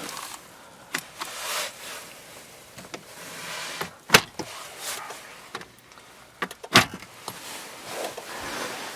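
Sharp plastic clicks and knocks from a car's glove compartment latch and lid as it is worked, with soft handling rustle between them. The loudest click comes about four seconds in and another near seven seconds.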